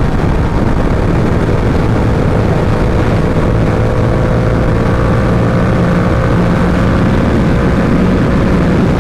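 Yamaha R7 parallel-twin engine running steadily at cruising speed, under heavy wind rush on the helmet microphone.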